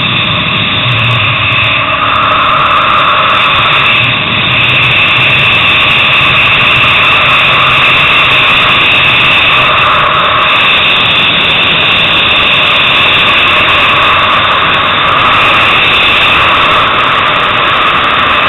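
Sport motorcycle engine running hard at high revs, heard from the bike itself with wind rush on the microphone. Loud and steady, with a brief dip about four seconds in.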